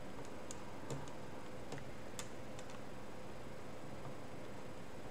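Faint, light clicks of small plastic buttons knocking against each other and the canvas as they are pressed into glue, about a handful in the first two and a half seconds.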